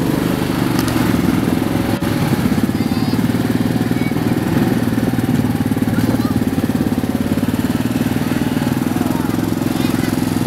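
ATV (quad bike) engine running steadily at low speed, a low, even drone without revving.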